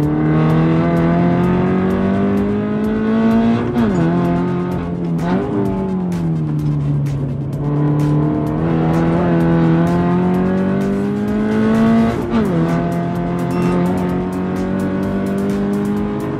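Toyota 86's 2.0-litre flat-four with a Fi valved exhaust, driven hard on track and heard from inside the cabin. The revs climb and drop suddenly at an upshift about four seconds in. A quick rev blip at about five and a half seconds is followed by falling revs as the car slows. The revs then build again, with another upshift after about twelve seconds.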